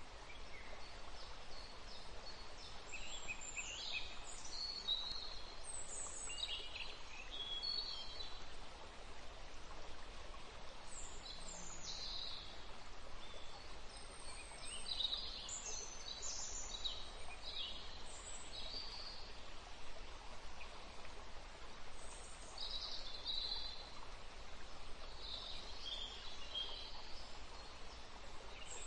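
Short, high chirping calls come in small clusters every few seconds over a steady background hiss.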